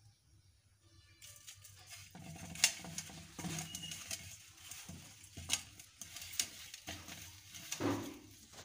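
Peeled boiled eggs rolled and mixed by hand in a stainless steel bowl, rubbing and knocking against the metal with scattered sharp clicks. It starts a little over a second in.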